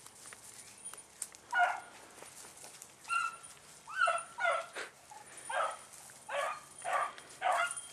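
Beagle baying in short, repeated calls that begin about a second and a half in and come faster toward the end: the hound giving tongue as it runs a rabbit's trail.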